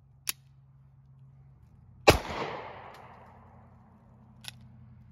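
Taurus GX4 pistol firing a single shot about two seconds in, followed by a long echo that dies away; the round is a factory-loaded one that had failed to fire on an earlier trigger pull, fired on a second try. A sharp click comes shortly before the shot and another about two seconds after it.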